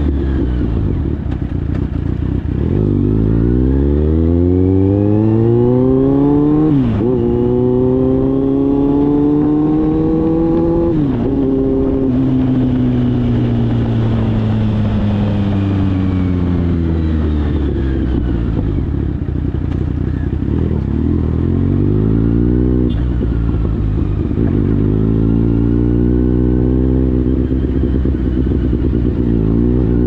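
Kawasaki Z800's inline-four engine through a Daivo aftermarket exhaust, accelerating with two quick upshifts about 7 and 11 seconds in. It then eases off and winds down before pulling up through the revs again in the second half.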